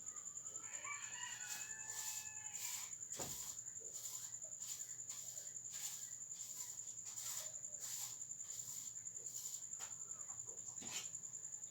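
A rooster crowing faintly, one drawn-out crow lasting about two seconds, near the start. Under it runs a steady high-pitched whine, with scattered clicks throughout.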